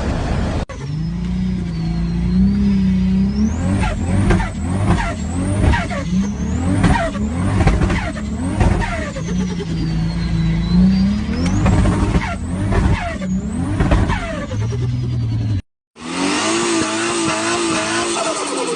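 Turbocharged car engine revved in a series of short blips over an idle, with a high whistle gliding up and down above it. About 16 s in, a cut leads to another engine whose note falls steadily as it slows.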